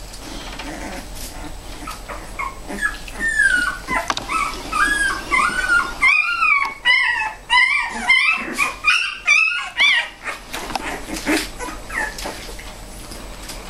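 Young boxer puppies whimpering and squealing: a run of short, high cries that rise and fall, about two a second, starting a few seconds in, loudest in the middle and dying away near the end.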